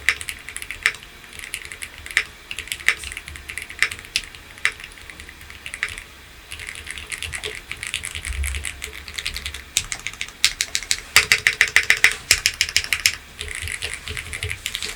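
Typing on a Bridge 75 mechanical keyboard: scattered single keystrokes, then a fast run of keystrokes from about ten to thirteen seconds in.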